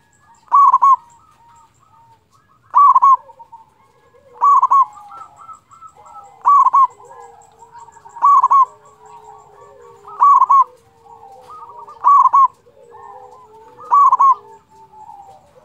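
Zebra dove (perkutut) singing: eight short, loud cooing phrases repeated about every two seconds. Fainter, lower calls run underneath from about four seconds in.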